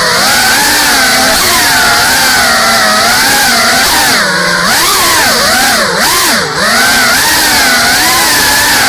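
GEPRC Cinelog 35 FPV cinewhoop's brushless motors and ducted propellers whining, the pitch constantly rising and falling with the throttle. About halfway through, and again about two seconds later, the pitch drops steeply and swings back up as the throttle is chopped and punched again.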